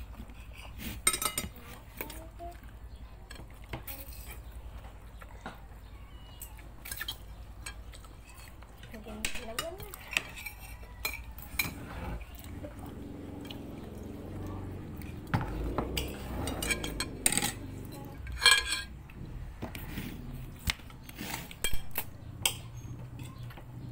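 Metal spoons clinking and scraping on plastic plates and bowls during a meal, in scattered short clinks.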